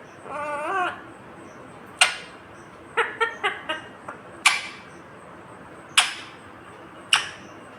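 Ringneck parakeet calling: a short wavering, warbling call at the start, then sharp, loud squawks about every one to two seconds, with a quick run of short chirps about three seconds in.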